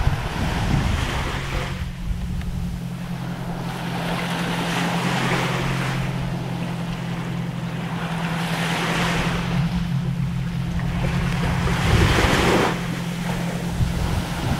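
Surf washing on a lava-rock shore, its hiss swelling and fading about every three to four seconds, with wind buffeting the microphone and a steady low hum underneath.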